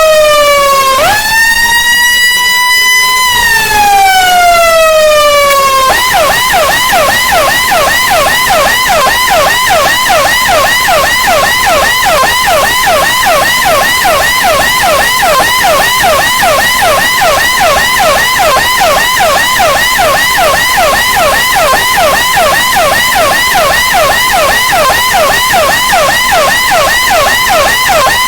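Electronic police/ambulance siren in a slow wail, its pitch gliding down, up and down again over a few seconds. About six seconds in it switches abruptly to a fast wail, short pitch sweeps repeating a few times a second and holding steady to the end.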